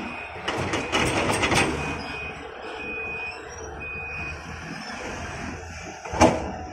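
Diesel engines of a Volvo 480 excavator and a Volvo 460 tipper truck running under a steady low rumble, with a burst of clattering strokes in the first two seconds as soil and rocks are loaded. Three short high beeps sound about a second apart, and a sharp loud thump comes near the end.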